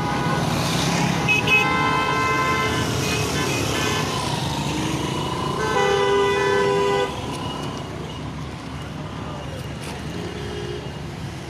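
Road traffic passing, with vehicle horns honking twice: a first honk about a second in and a second, louder one about six seconds in that cuts off suddenly.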